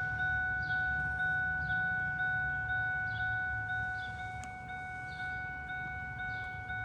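A vehicle's warning chime dinging over and over, about two dings a second, over a low engine rumble.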